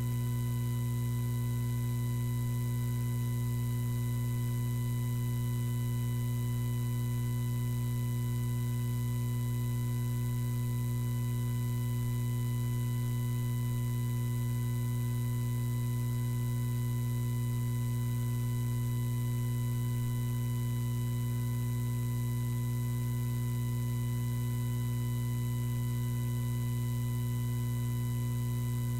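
Steady electrical mains hum, a low, unchanging drone with fainter higher overtones, and nothing else heard over it.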